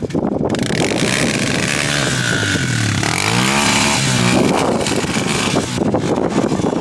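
ATV engine running under heavy noise, its pitch dipping about three seconds in and climbing again a second later.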